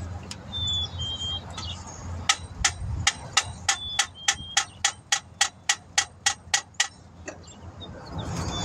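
A quick, even run of about seventeen light metal taps, three or four a second, as a new alternator is tapped into place in its engine mount.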